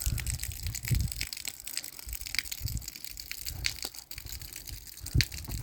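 Heavy rain: a dense crackle of drops with irregular low thumps underneath.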